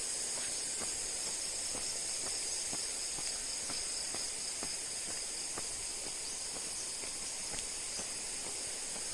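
Steady high-pitched chorus of insects shrilling, with soft footsteps about two a second walking along.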